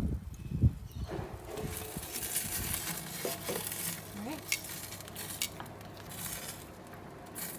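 Olive oil dripping through the grill grate onto hot charcoal, sizzling with scattered crackles. There are a couple of low thumps near the start.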